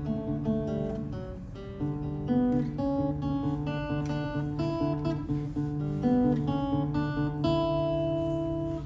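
Acoustic guitar strumming a chord progression as a song's introduction, the chords changing every half second or so.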